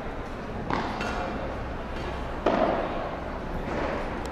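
Padel ball being struck during a rally: two sharp hits about two seconds apart, each with a short echo, and a fainter hit near the end.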